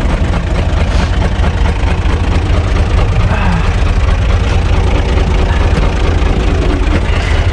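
UTB U445 DT tractor's diesel engine running steadily, heard from inside the open cab as a loud, even low rumble.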